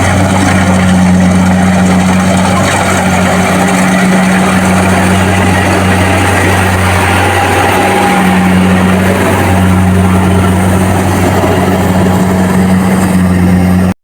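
Kubota DC-70 Plus combine harvester running, its engine giving a loud, steady low hum.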